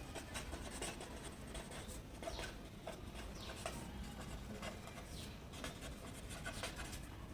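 Handwriting: a pen scratching in many short, quick strokes.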